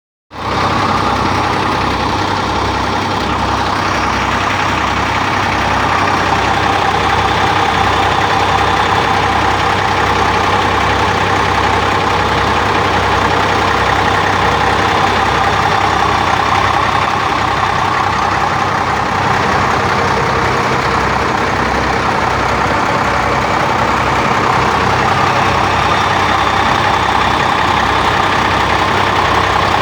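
Mercedes-Benz O400 coach's diesel engine idling steadily.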